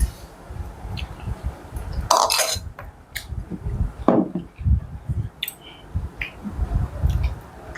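Close-up eating sounds: chewing with low, uneven thumps, scattered light clinks of a plate or utensils, and two short louder noisy bursts about two and four seconds in.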